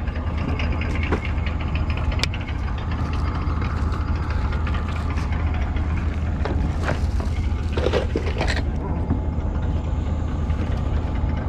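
Small longtail boat engine running steadily, a low continuous hum. A few brief knocks and a short voice come through about two-thirds of the way in.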